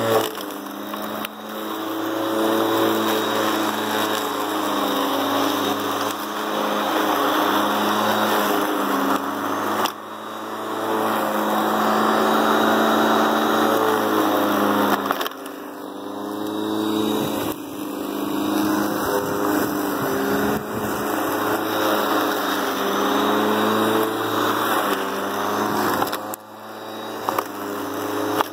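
Ryobi 13-inch corded electric lawn mower running and cutting long grass: a steady motor whine whose pitch sags and recovers several times as the blade takes on grass, over the rushing noise of the cutting.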